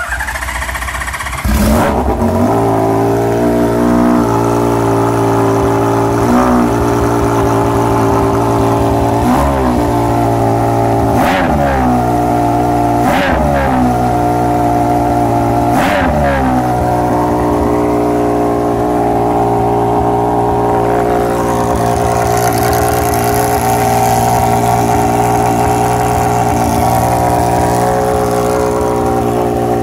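A 1981 Honda CBX1000's air-cooled inline-six, on Keihin FCR carburetors and a full titanium exhaust, firing up from cold. It is blipped sharply several times, each rev rising and dropping back quickly, then settles to a steady idle.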